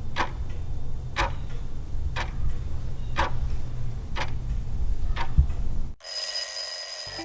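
Countdown-timer sound effect: a clock ticking once a second, six ticks over a low rumble. Then a bell rings for about a second near the end, signalling that the time is up.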